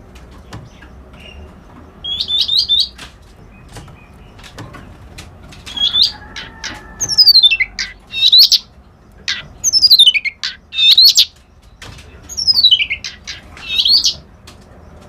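A white-browed reed warbler (kerak basi) singing in loud, separate phrases: quick repeated upslurred notes, and long falling whistles that sweep down and end in a sharp rising note. Faint scattered clicks run between the phrases.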